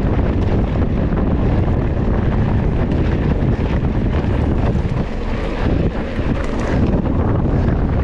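Wind buffeting the microphone of a camera on a moving mountain bike, over the noise of the bike rolling along a dirt road. The wind noise eases slightly about five seconds in.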